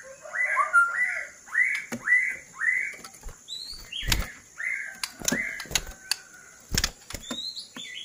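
White-rumped shama (murai batu) giving a run of short, arched call notes, about two a second, with a few higher notes mixed in. Wing flutters and sharp thumps come about four seconds in and again near seven seconds as it hops about its cage.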